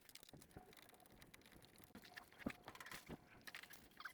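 Near silence, with faint scattered clicks and taps, the strongest about two and a half seconds in.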